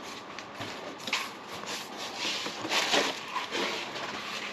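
Cardboard packaging being opened and handled: irregular rustling and scraping, with a few light knocks.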